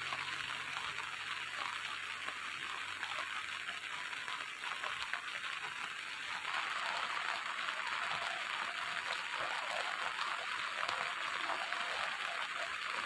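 Steady rain falling, a dense even patter of countless drops, growing a little louder about halfway through.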